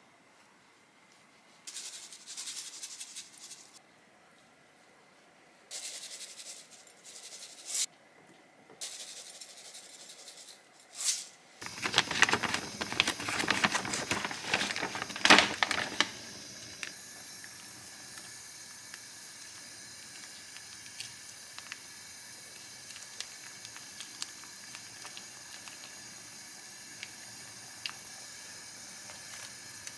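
A silicone pastry brush scrubbing across gimbap rolls in short bursts. Then about twelve seconds in comes a loud stretch of plastic-package crinkling and clatter. After that, a gas stove burner hisses steadily under a pot, with a few light ticks.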